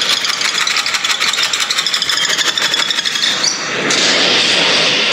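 Samsung Galaxy S23 Ultra's stereo speakers playing audio loudly: a dense, rasping sound with a fast pulsing texture that turns fuller and lower about four seconds in.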